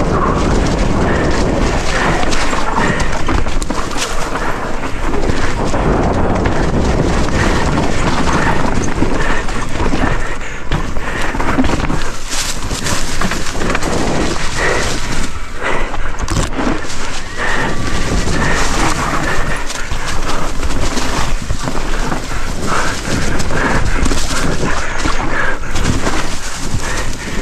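Mountain bike ridden fast down a leafy, rocky singletrack: a constant rush of tyre and wind noise, broken by frequent clatter and knocks from the bike bouncing over rocks and roots.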